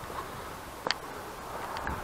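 Footsteps on a stony, dry-grass slope under steady wind hiss on the microphone, with one sharp tick about a second in.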